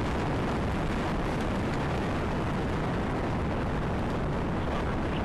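The three RS-68 engines of a Delta IV Heavy rocket firing as it climbs after liftoff: a steady, deep noise that holds even throughout.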